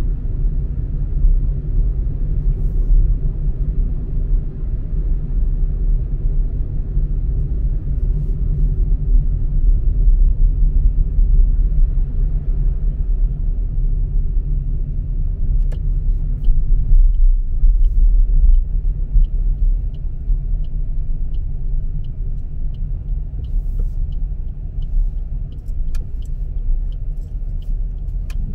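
Car driving: a steady low rumble of engine and road noise. About halfway through, a regular light ticking starts, a little under two ticks a second, and keeps on almost to the end.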